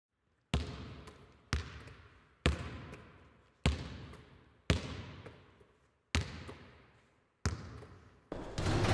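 A ball bouncing on a hard floor, eight slow single bounces about a second apart, each echoing and fading away slowly as in a large empty hall. A swelling sound comes in right at the end.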